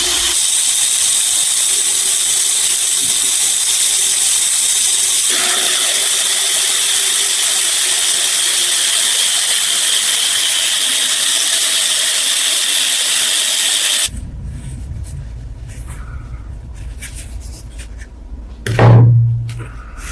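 A power tool running steadily with a high-pitched whine and hiss, which cuts off suddenly about two-thirds of the way through. After it, quieter scattered clicks, and near the end a brief loud low hum.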